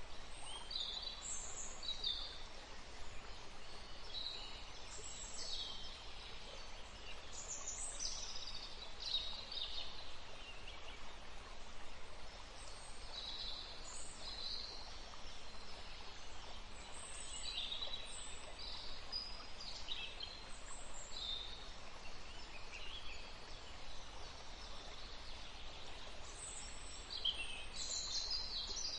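Small forest stream flowing with a steady gentle hiss, under frequent short bird chirps and calls.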